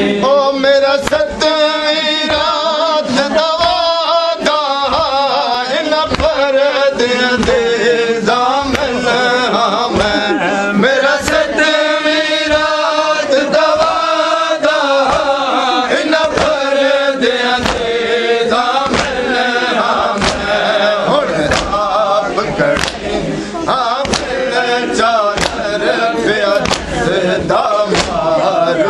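Men's voices chanting a Muharram mourning lament (noha), with regular sharp slaps of hands striking chests (matam) keeping the beat.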